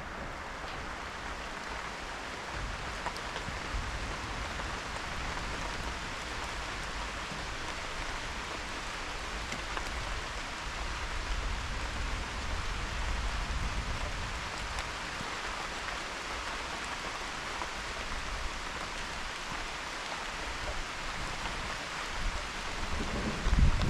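Steady rain falling in an even hiss through a thunderstorm. Near the end, thunder breaks in with a sudden low rumble that grows louder.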